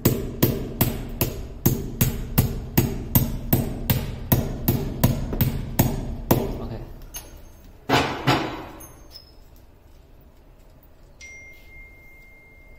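Hammer tapping a screw anchor into a hole in a wall: a steady run of light strikes, about three a second, for some six seconds. After a short pause come two harder blows close together.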